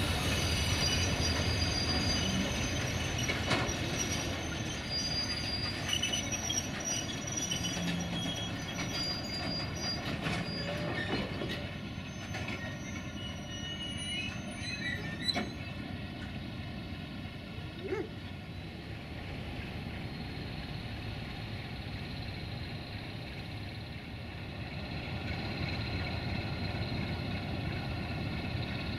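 Loaded oil tank wagons of a freight train rolling slowly past, their wheels squealing in several high, held tones over a steady rumble, with occasional clicks of wheels over the rail joints.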